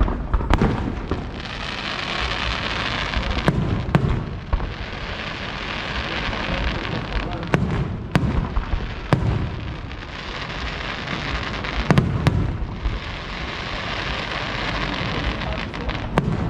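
Fireworks display: shells bursting with sharp bangs, often two in quick succession, every three to four seconds, each group followed by a crackling hiss lasting a couple of seconds.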